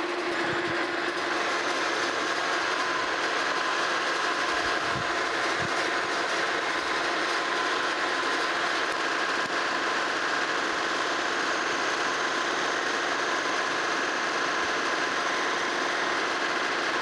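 Monarch Model K metal lathe running steadily while its tool takes a roughing cut along a spinning metal shaft, turning about 100 thou off the diameter. The sound holds a steady low hum and a higher steady tone throughout.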